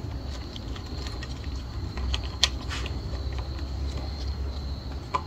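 A folding Allen key set ticking and rattling as it turns the handlebar clamp bolt on an e-bike's stem, with one sharper click about two and a half seconds in. A steady low hum runs underneath.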